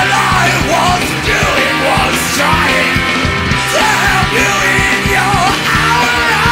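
Loud punk rock song with a man shouting the vocals over the band.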